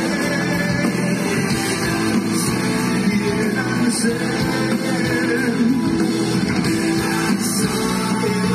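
Live rock band playing at full volume through the PA: electric guitars over drums and bass, heard from within the open-air audience.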